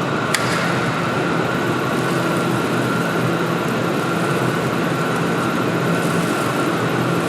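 Steady mechanical drone with a constant hum, unchanging throughout, and a single sharp click shortly after the start.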